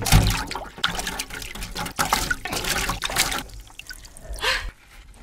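Water splashing and sloshing in a clear fish tank as a live sea raven (a spiny sculpin-type fish) is grabbed by hand and pulled out. The splashing is busiest for the first three seconds or so, with one more splash shortly before it quietens to dripping.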